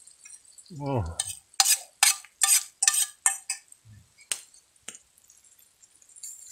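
A man's short voiced 'ahh' falling in pitch, then a quick run of about eight scraping strokes of a metal utensil against cookware, ending in two sharp clicks.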